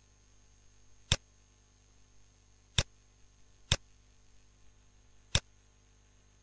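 Four sharp computer mouse clicks, unevenly spaced, over a faint steady electrical hum.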